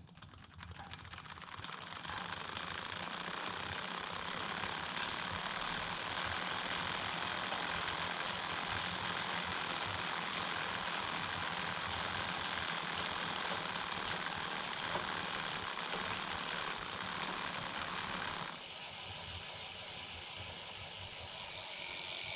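Bicycle chain running over the idler cog of a home-built carbon-fibre recumbent, in the 39-tooth chainring and 11-tooth rear cog, with the chain keeper removed from the idler. The steady drivetrain noise builds up over the first two seconds and drops somewhat in level about 18 seconds in.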